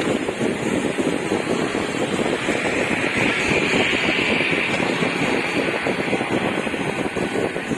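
Steady wind rushing over the microphone of a moving rider, mixed with vehicle and road noise. A higher hiss swells for a couple of seconds in the middle.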